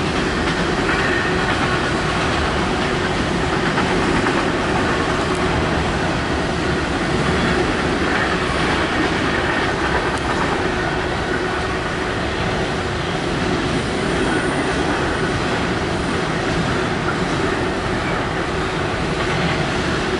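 Norfolk Southern freight train of empty intermodal cars rolling past at speed: a steady, loud rumble and rattle of steel wheels on rail.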